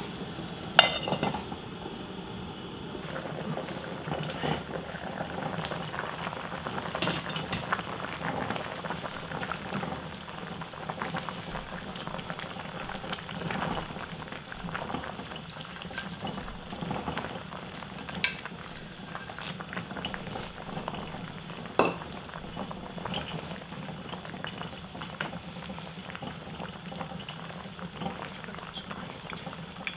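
Spicy skate stew boiling hard in a stainless steel pot, a steady bubbling with fine crackling. A few sharp clicks stand out, the loudest about a second in and two more later on.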